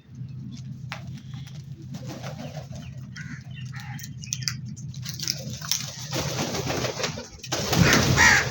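Birds calling, over a steady low drone, with a louder, noisier passage in the last two seconds.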